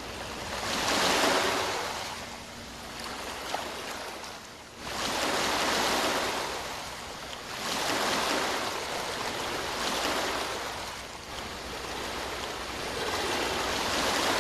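Ocean waves breaking and washing in, the surf swelling and fading every few seconds, with a sudden surge about five seconds in.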